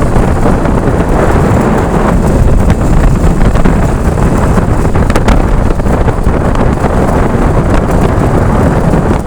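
Strong storm wind blowing across the microphone: a loud, constant rumble with scattered crackles.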